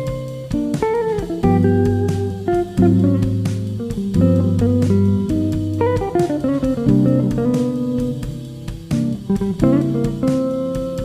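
Background music: plucked guitar with bass, playing a slow run of chords and single notes.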